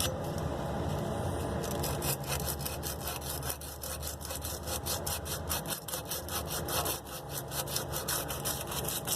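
60-grit sandpaper rubbed rapidly back and forth around a copper pipe, a fast run of scratchy strokes several times a second, scouring off paint down to bare metal for soldering.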